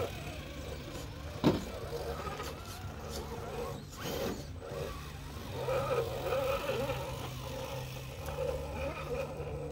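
Electric drive of a scale RC rock crawler (SCX10 II clone with a 35-turn 540 brushed motor) whining as it creeps over rocks, pitch shifting with the throttle, with one sharp knock about a second and a half in.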